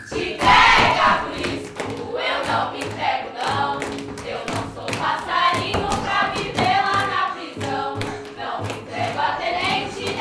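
A group of voices singing together in chorus, with hands slapping or clapping out a steady beat. A brief loud rush of noise comes just after the start.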